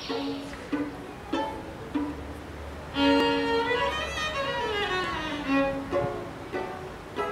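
Instrumental intro music, a melody running down in quick stepped phrases over a low accompaniment.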